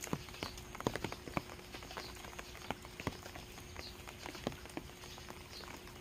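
Rain dripping from thatched eaves, heavy drops landing irregularly as separate taps on the wet ground and stones. A bird gives a short high call three times, about every two seconds.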